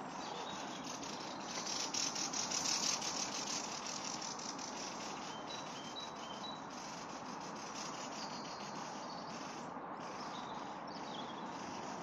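Birds singing over a steady background hiss: a loud, fast, high trill about two seconds in, then a few short high chirps later on.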